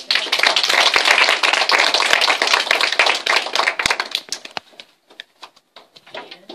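A small audience clapping hands: a loud burst of applause for about four and a half seconds that then thins to a few scattered claps.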